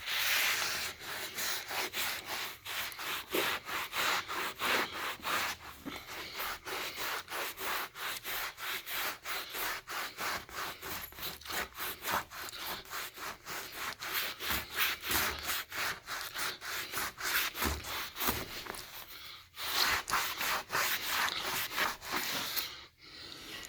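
Alcohol-soaked cloth rag rubbed back and forth over shellac-finished wood trim in quick, even strokes, about three a second, with short pauses about three-quarters of the way through and near the end. The alcohol is remelting the old, failed shellac finish and lifting off the grime.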